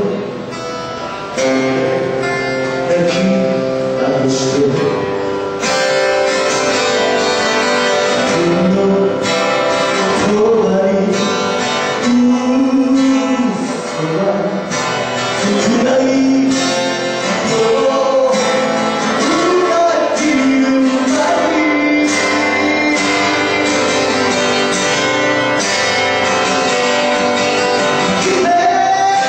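Live folk performance: acoustic guitar strumming under a sung melody, a slow ballad played by a band.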